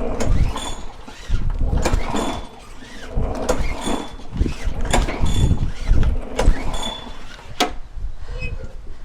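Lawnmower engine turned over by several pulls on its recoil starter cord, each a short whirring crank about a second and a half apart, without the engine catching. It fails to start even with the spark plug freshly gapped.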